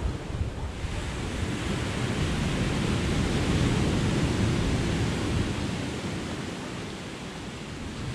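Sea surf washing ashore, a steady rush of noise that builds about halfway through and eases off near the end.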